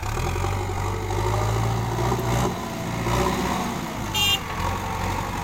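JCB 3DX backhoe loader's diesel engine running, growing louder at the start as it takes on load. About four seconds in there is a short, high-pitched squeal.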